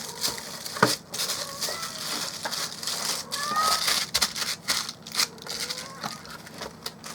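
Cardboard box and packaging being handled, crinkling and rattling with scattered clicks and knocks.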